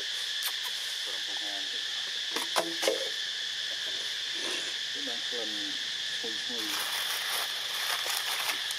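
Steady, high-pitched drone of insects, two held tones without a break. A few short, wavering low calls come and go over it, and a cluster of sharp clicks about two and a half seconds in is the loudest sound.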